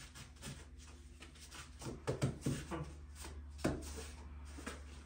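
Gloved hands working a lump of pide dough on a floured countertop: soft rubbing, then a cluster of dull pats and knocks about two seconds in, and a single sharper knock a little before four seconds, the loudest. A steady low hum runs underneath.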